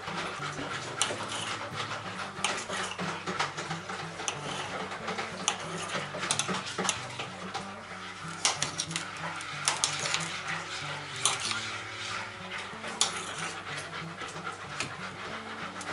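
Knife dicing tomato on a glass cutting board: irregular sharp clicks and taps as the blade strikes the glass. Background music plays underneath.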